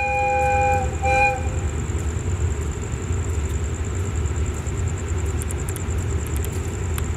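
Diesel train's multi-tone air horn sounding, the long blast ending a little under a second in, then a short second toot. A steady low rumble from the train follows.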